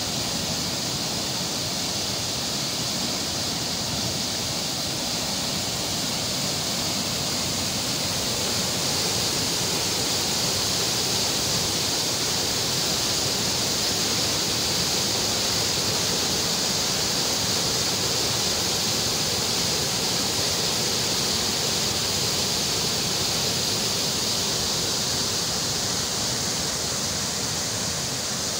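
Water rushing out beneath the open gates of a canal regulator and churning in white water below, a steady noise that grows slightly louder through the middle.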